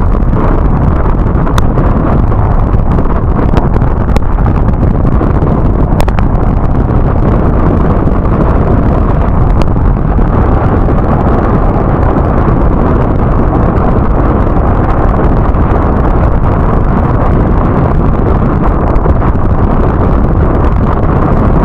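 Wind buffeting the action camera's microphone on an inflatable sailing dinghy under way, mixed with water rushing and splashing past the hull; a few sharp ticks in the first half.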